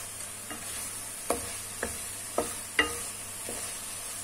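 Wooden spatula stirring chicken pieces in spicy tomato masala in a metal pan: several short knocks and scrapes of the spatula against the pan over a steady sizzle of frying. The loudest knock comes a little under three seconds in.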